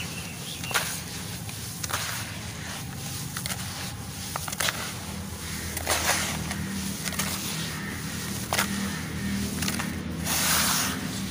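Hands squeezing and mashing wet, crumbled charcoal paste in water, with gritty crunching and squelching, scattered sharp cracks, and a louder burst of churning grit near the end. A steady low hum runs underneath.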